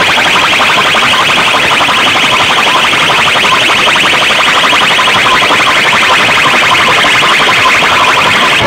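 Very loud electronic DJ music blasting from a large outdoor DJ sound system. It sounds harsh, with most of its energy in the upper mids and little bass, and a dense, fast repeating buzzy pattern that runs without a break.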